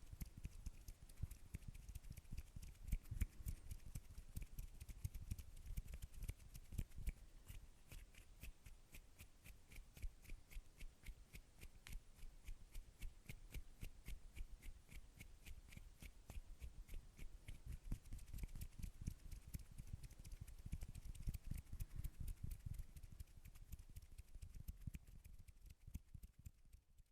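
ASMR hand sounds: fingers tapping and rubbing close to the microphone, a dense run of quick crisp clicks with soft low thumps under them.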